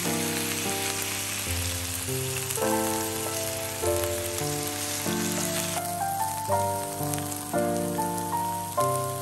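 Thin slices of beef sizzling on a hot tabletop grill plate, under background music: a gentle melody of held notes. The sizzle drops away a little before six seconds in, leaving the music.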